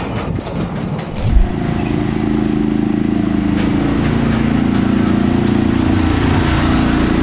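Amusement ride machinery starting up: a thump about a second and a half in, then a steady motor hum of several tones that shift a little in pitch.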